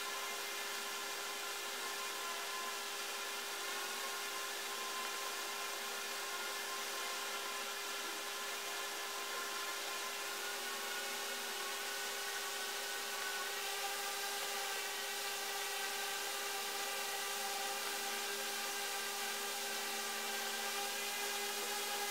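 A small electric motor whirring steadily, with several constant tones held throughout and a steady hiss beneath.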